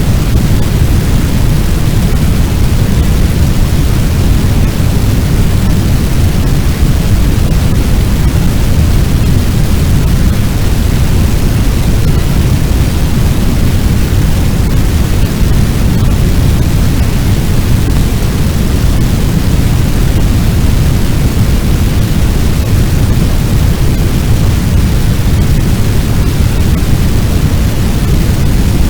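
Fire sound effect of a large blaze: a loud, steady low rumble with a fainter hiss above it, even and unbroken, with no separate crackles.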